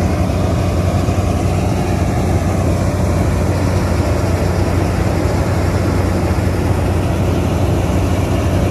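Diesel engine of heavy farm machinery running steadily, a constant low drone.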